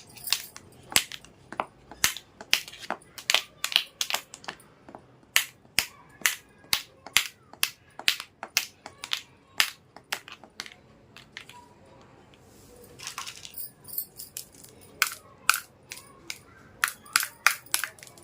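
Small plastic toy pieces clicking and tapping as they are handled, in quick irregular clicks, with a stretch of rustling about twelve seconds in.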